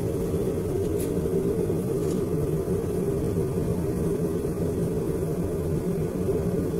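A knife-making forge running with a steady low rumble from its fire and air supply. A light click about a second in.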